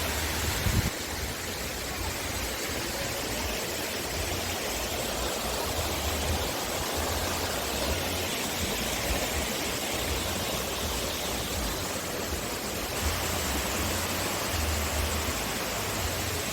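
Steady rushing noise of running water, with uneven low rumbles of wind buffeting the microphone.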